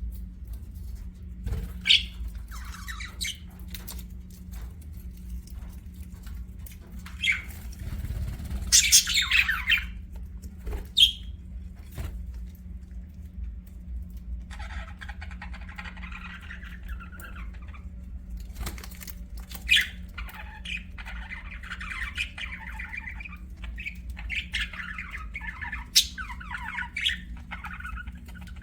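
Budgerigars chirping and squawking: several loud sharp squawks, the loudest cluster about nine seconds in, with stretches of softer warbling chatter through the second half. A steady low hum lies underneath.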